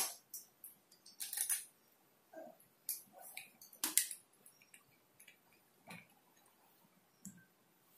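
Daido Daimos 6000 spinning reel being handled and worked by hand: a scattered series of soft clicks and light knocks from its parts, about one every second or so.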